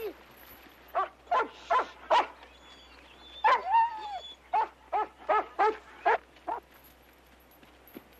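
Dog barking: about a dozen short, sharp barks, with a couple of longer drawn-out yelps around the middle.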